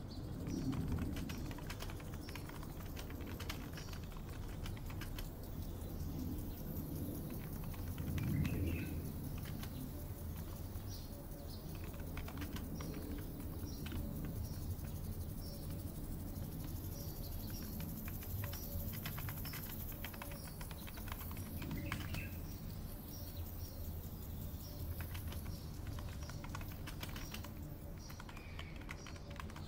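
Computer keyboard typing in short bursts of clicks, over short bird chirps repeating every second or so and a low steady rumble. A faint high hiss comes in for a stretch in the middle.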